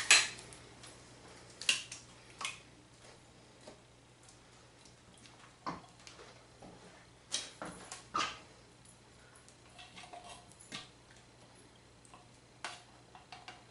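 Sparse clicks, taps and scrapes from a metal soup can being handled: its lid is pulled off, then a spoon scrapes thick condensed soup out of the can.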